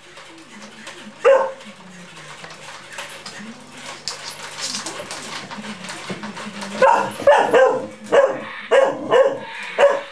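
Puppy barking at a walking robot dinosaur toy: one sharp bark about a second in, then a quick run of barks in the last three seconds.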